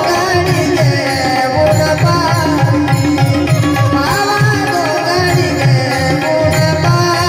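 Tabla playing a steady rhythmic accompaniment, its bass drum strokes repeating, under a melody line from a bulbul tarang.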